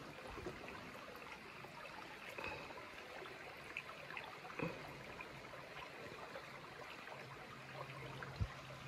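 Faint trickle of a shallow stream running over rocks, with a soft low thump near the end.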